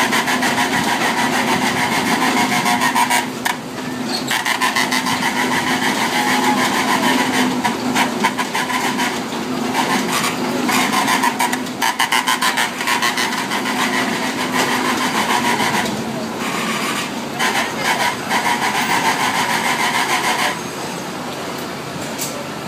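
Carnival kiddie motorcycle ride turning: a steady mechanical hum with rapid clicking and rattling. It drops away about twenty seconds in.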